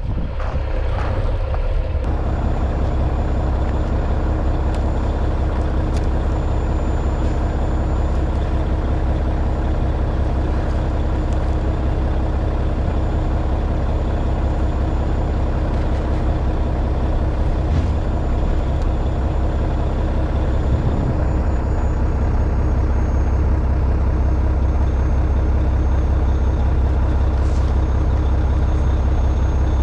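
Semi truck's diesel engine idling steadily: a continuous low hum.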